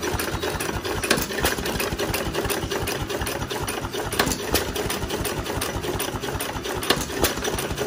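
A 1 1/2 hp Novo vertical single-cylinder hit-and-miss engine running: a steady, fast mechanical clatter, with a few louder sharp knocks here and there.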